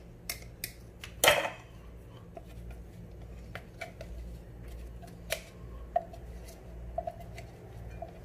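Plastic food-chopper bowl being tipped and handled over a bowl of minced meat as the chopped onion and herb mix is knocked out of it: one louder knock a little over a second in, then light scattered clicks and taps over a faint low hum.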